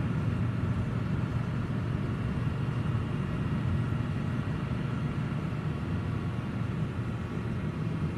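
A car driving slowly, its engine giving a steady low rumble with little change in pitch.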